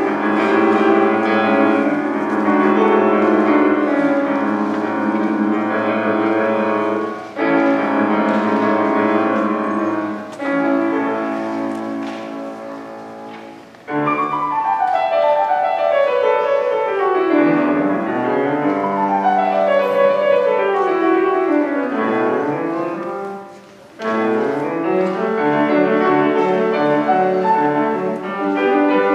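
Kawai grand piano played solo: loud, dense chords, then fast runs sweeping down and back up the keyboard. Twice the sound dies away and the next passage starts with a sudden loud attack, about halfway through and again near the end.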